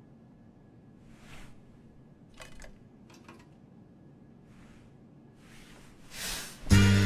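Hushed hall with a few faint rustles and soft clicks, then a brief swell of breathy noise and, just before the end, a full concert band coming in with a loud sustained chord on the conductor's downbeat.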